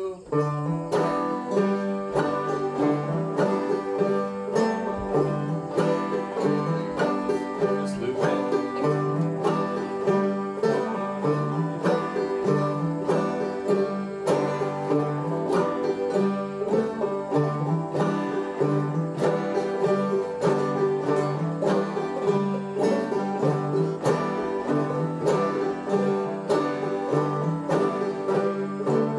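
Open-back banjo played clawhammer style: a steady, even run of plucked notes and brushed strums keeping an old-time rhythm without a break.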